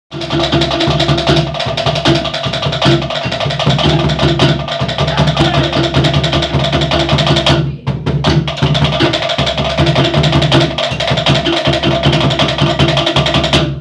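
Cook Islands drum ensemble playing a fast, driving rhythm: rapid wooden slit-drum strikes over the beat of a large skin bass drum. It breaks off briefly about eight seconds in, then stops suddenly at the end.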